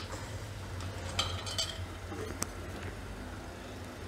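Faint clinks and scrapes of a steel ladle stirring sugar syrup in a stainless steel pot, with one sharper clink about two and a half seconds in, over a low steady hum.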